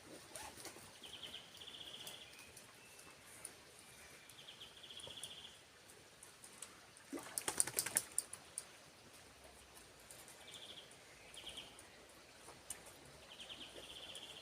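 Forest ambience of short, high trilled chirps repeating every second or two, with a louder burst of clicking and rustling about seven seconds in.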